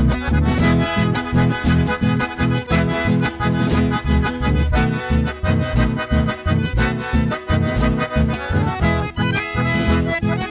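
A chamamé band playing live: a piano accordion carries the melody over an electric bass and guitar, with a quick, steady beat.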